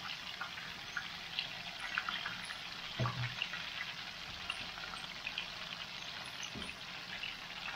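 Potato-starch-coated mud crabs deep-frying in a wok of hot oil: steady sizzling with many small crackles. Two light knocks, about three seconds in and again near the end, as metal tongs turn the crabs.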